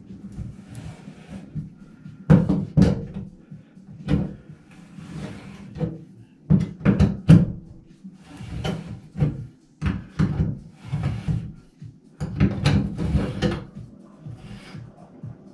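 Metal hand tools knocking, clanking and scraping in a bathtub's drain flange as it is worked to notch it and twist it out, in irregular bursts of strikes and scrapes with an echo from the tub.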